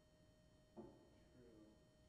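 Near silence: church room tone with a faint steady hum, and a brief faint voice about a second in.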